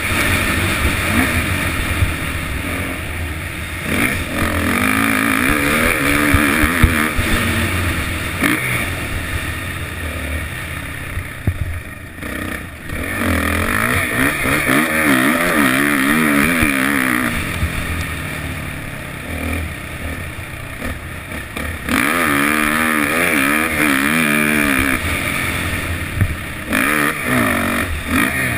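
Suzuki 450 four-stroke motocross bike riding laps, its engine revving up and dropping back again and again as the rider opens and closes the throttle through the corners and straights, with a few short knocks.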